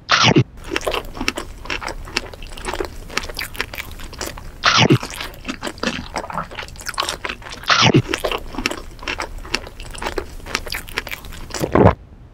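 Close-up mukbang eating sounds of a strawberry cream sandwich: four loud crunchy bites, at the start, about five seconds in, about eight seconds in and near the end, with steady wet crunchy chewing between them.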